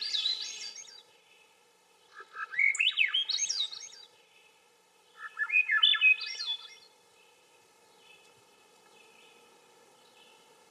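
Swainson's thrush singing: the end of one song, then two full songs of quick flutelike notes, each spiralling upward in pitch, with a pause of a second or so between them. The last few seconds hold only faint background.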